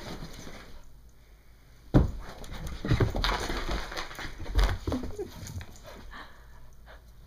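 Brittany puppy romping on carpet: scuffling and a few thumps starting about two seconds in, with a short whimper about five seconds in.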